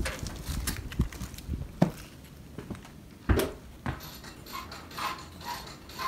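Scattered knocks and clicks from objects being handled, the loudest about three seconds in.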